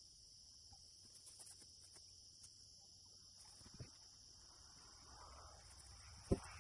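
Faint, steady chorus of crickets, with a few soft knocks and one sharp thump near the end.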